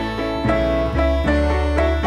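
Background instrumental music: plucked strings and keys over a steady bass, notes changing every half second or so.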